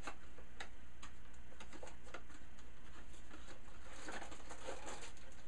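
Small cardboard box and microphone being handled: faint scattered clicks and rustles of packaging, a little busier near the end, over a steady low hum.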